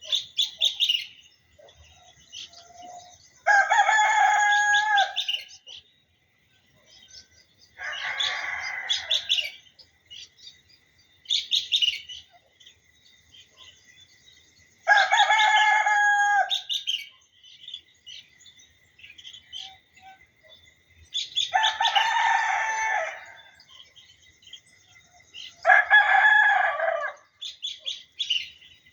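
A rooster crowing five times, a few seconds apart, each crow lasting a second or two. Small birds chirp between the crows.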